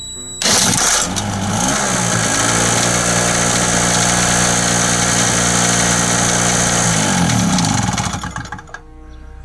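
Small two-stroke generator engine (Chicago Electric 900-watt) spun over by a cordless drill on its flywheel nut. It catches within a second or two, revs up and runs steadily. It winds down and stops near the end.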